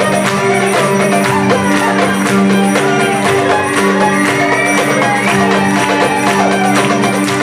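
Live band music for belly dance: a violin melody gliding over a steady drone, with hand percussion and a jingling tambourine-like shimmer.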